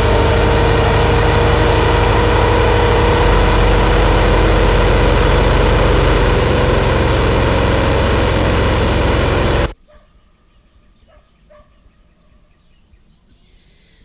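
Dense, distorted electronic noise texture with a held drone and a fast low buzzing pulse, cutting off abruptly about ten seconds in. After the cut only faint scattered clicks and tones remain.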